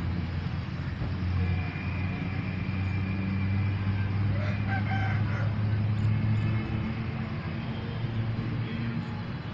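An engine running with a steady low hum, which eases off about two-thirds of the way through. A short high call sounds about halfway through.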